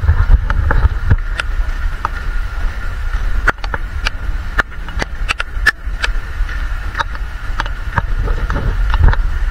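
Low rumble of wind and handling on a handheld microphone, with irregular sharp clicks throughout and a faint steady high hum behind.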